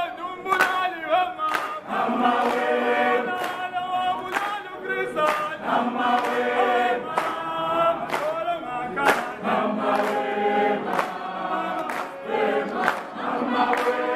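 A group of men and women singing together in unison, with steady hand claps about once a second keeping time.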